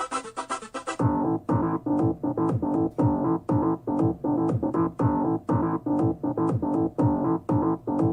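An electronic music track played through a Sony SRS-HG10 Bluetooth speaker with EXTRA BASS mode on. About a second in, a dense, bright passage gives way to a keyboard section with a steady pulse of notes, about two a second, over deep falling bass hits.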